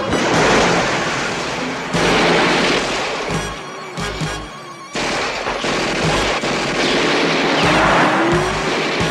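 Action-scene television soundtrack: dramatic score music over a dense mix of gunfire and booms. It dips in the middle and comes back loud about five seconds in.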